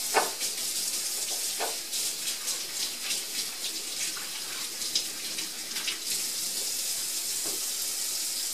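Kitchen faucet running into a stainless steel sink while hands are washed under the stream. The water splashes unevenly off the hands.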